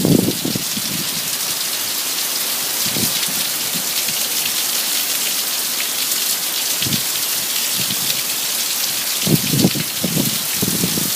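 Heavy rain falling steadily as a dense hiss. A few short low thumps come through, at the start, about three and seven seconds in, and in a loudest cluster about nine to ten seconds in.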